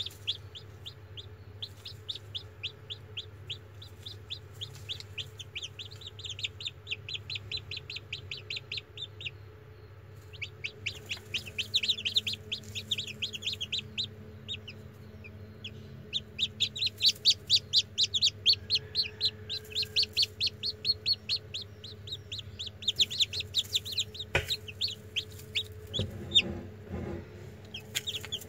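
Newly hatched chicks peeping: rapid runs of short, high, downward-sliding peeps, several a second, with brief lulls between runs. A low steady hum lies underneath, and a sharp click and a few soft knocks come near the end.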